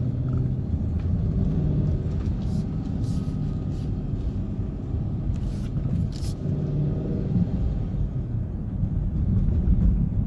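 Car's V8 engine running steadily at low revs while cruising, a continuous low rumble heard from inside the cabin.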